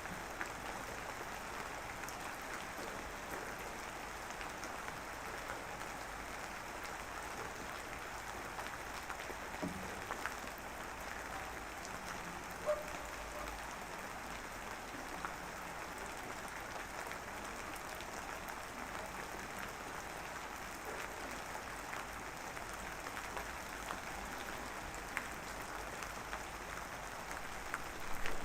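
Light drizzle falling: a steady, soft hiss of fine rain with scattered small drop ticks.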